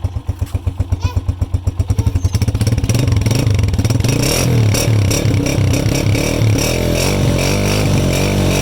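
A 2021-model 125cc single-cylinder motorcycle with an aftermarket white silencer. It idles with distinct, evenly spaced exhaust beats, then from about three seconds in it is revved up and down several times: a silencer sound test.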